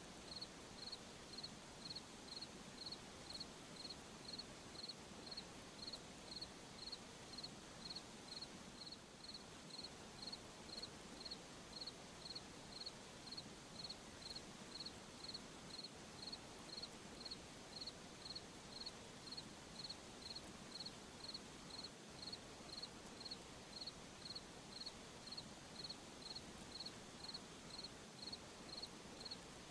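A cricket chirping steadily, short high chirps about two a second, over a faint even hiss of night background.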